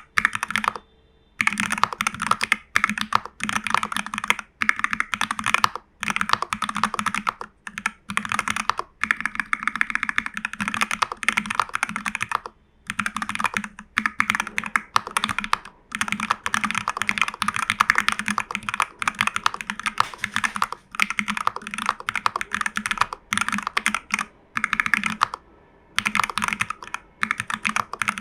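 Continuous fast typing on a TU40 plastic-case 40% mechanical keyboard with Jelly Strawberry v3 switches and CRP keycaps, modded with case foam, PCB foam, tape mod and lubed Owlab stabilizers. The keystrokes come in quick runs with a few brief pauses.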